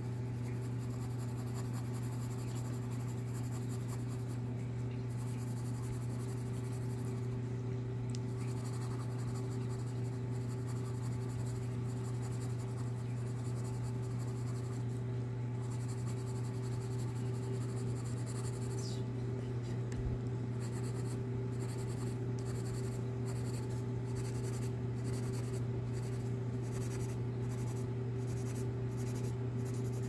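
No. 2 graphite pencil scratching across sketch paper in shading strokes, over a steady low hum. In the last third the strokes fall into a regular rhythm, about one and a half a second.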